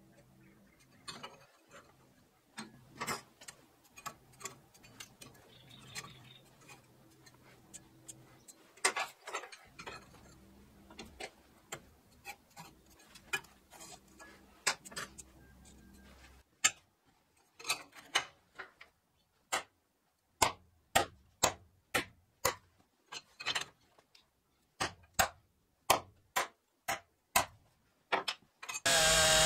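Scattered light clicks and taps, then a run of sharp ticks about two a second with silence between them. Near the end, a loud small motor starts running.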